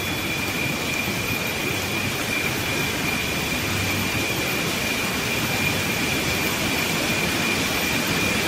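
Wind rumbling steadily through rainforest canopy, a continuous rush of leaves and branches, with a thin steady high-pitched tone running over it.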